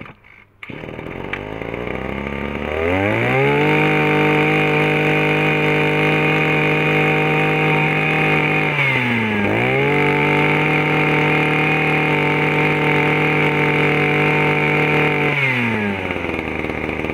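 Small Maruyama 21cc two-stroke engine of a 10-litre power sprayer starting and running slowly, then revved up to a high steady pitch. It dips briefly and comes back up about halfway through, then drops back to idle near the end.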